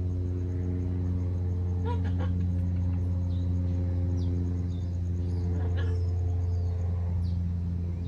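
A steady low machine hum, with a short call from the Amazon parrots about two seconds in and another near six seconds. Faint high bird chirps come over the top.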